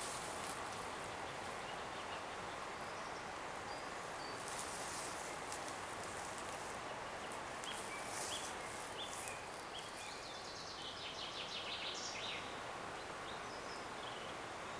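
Riverside ambience: a steady rush of flowing river water, with small birds singing short high notes and one quick high trill about two-thirds of the way through.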